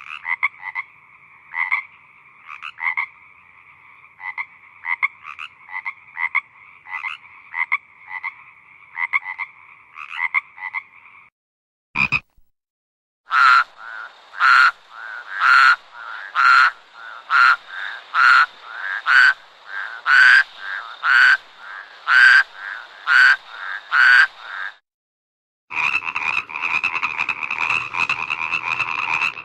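Frogs calling at night. First comes a series of short repeated croaks over a steady background of calling. After a brief click about midway, loud calls come about once a second, and near the end the calling becomes a dense, continuous chorus.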